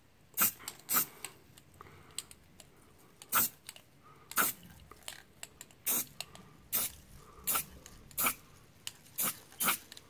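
Aerosol spray-paint can fired in about ten short spurts of hiss, touch-up spritzes of paint onto a pistol magazine.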